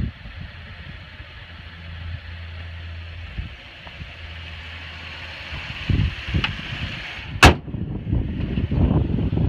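The hood of a 2012 Chevrolet Impala being slammed shut: one sharp, loud bang about two-thirds of the way in, after a couple of lighter thumps as it is lowered.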